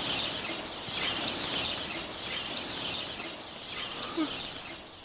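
Forest ambience with birds calling over and over in high chirps, over a faint steady background hiss.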